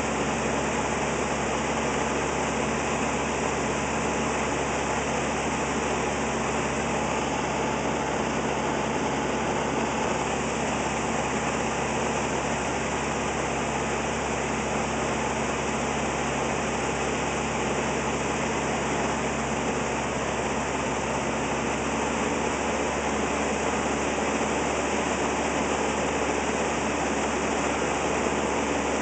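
Light aircraft's piston engine and propeller running steadily, with air rushing past, heard inside the cockpit.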